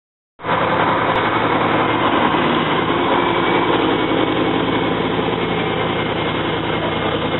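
Bugatti sports car's engine idling steadily, starting abruptly about half a second in.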